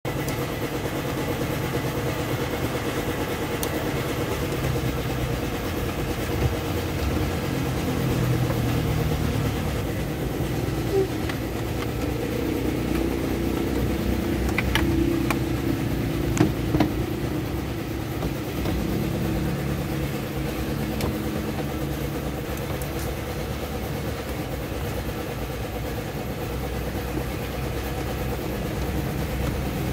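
A steady low mechanical rumble, with a few light clicks and knocks of plastic dashboard parts being handled.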